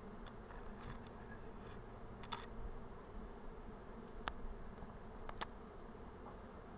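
Honeybees buzzing steadily around an open hive, a low, even hum. A few short, light clicks sound over it.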